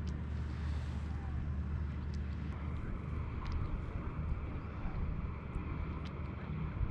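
Steady low rumble of wind buffeting the camera's microphone out on open water, with a few faint clicks between about two and six seconds in.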